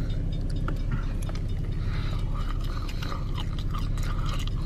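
Car engine idling, a steady low rumble heard inside the cabin, with scattered light clicks over it.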